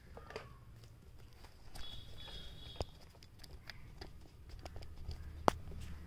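Light plastic clicks and knocks from a handheld stick vacuum being handled on a tile floor, with one sharp click about five and a half seconds in, over a faint low hum. The vacuum's motor is not running.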